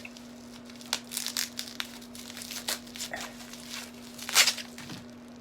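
Packaging being crinkled and torn open by hand: a run of rustles and rips, the loudest burst about four seconds in.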